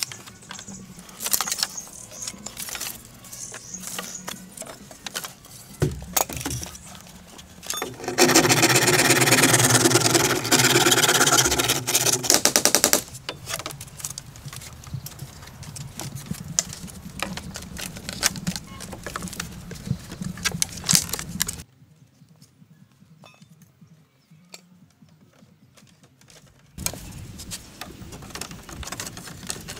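Irregular knocks and clicks. From about eight seconds in comes a loud, very fast rattle of strikes lasting about five seconds. Near the end there are a few seconds of much quieter sound before the knocking resumes.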